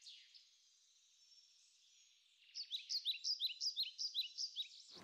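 Faint, thin, high-pitched chirping. It is nearly silent at first, then from about two and a half seconds in come quick runs of short chirps, three or four a second, with no low sound under them.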